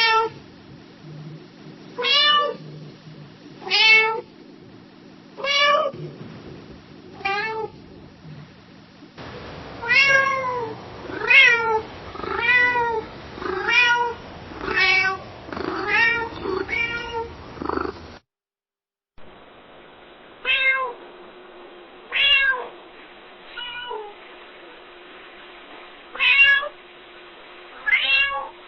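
Domestic cat meowing over and over, in three separate recordings: first meows spaced about two seconds apart, then a quicker run of about one meow a second, then, after a moment of silence, spaced meows again.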